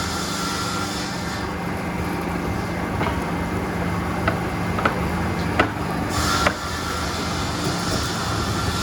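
Wood-veneer factory machinery running with a steady hum and hiss, with a few sharp clicks or knocks about halfway through.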